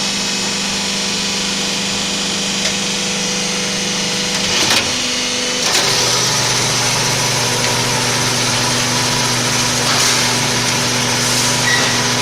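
Hydraulic scrap-baling press's motor and pump running with a steady hum. A clank comes about four and a half seconds in, and a second later the hum drops to a lower pitch.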